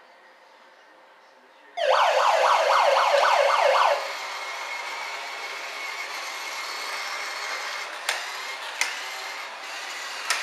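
Toy fire engine's electronic siren sounding a fast, warbling yelp for about two seconds. It then drops to a quieter steady running sound, with a few sharp clicks near the end.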